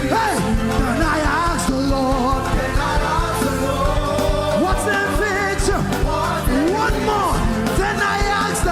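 Upbeat gospel praise music from a live band with a steady drum beat, with singing over it.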